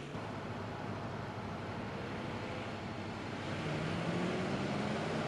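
Car engines and tyre noise of large sedans driving fast on a road. The engine tone gets louder and climbs a little about three and a half seconds in.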